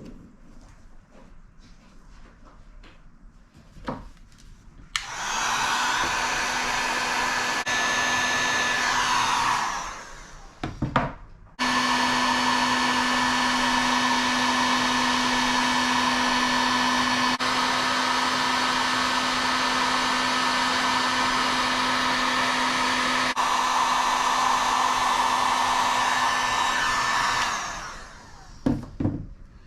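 Electric heat gun blowing steadily, switched on twice: once for about five seconds, then again for about sixteen seconds, each time starting and stopping abruptly. It is shrinking and melting heat-shrink solder-seal connectors on lamp-cord wires.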